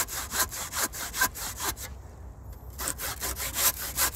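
Hand pruning saw cutting a wedge into the trunk of a coral tree, through its thick corky bark: quick back-and-forth strokes, about four or five a second, with a short pause a little past halfway.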